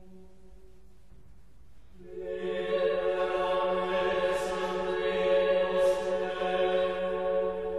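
Voices singing a slow hymn in chorus, with long held notes, faint at first and much louder from about two seconds in.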